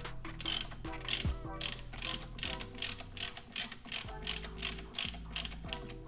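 Ratchet wrench with a 19 mm deep socket clicking in short, sharp bursts about three times a second as the handle is swung back and forth, unscrewing the PCV valve from the engine's valve cover.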